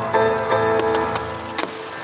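Music of a fireworks show playing over loudspeakers, with several sharp firework bangs from shells bursting, the loudest about a second and a half in.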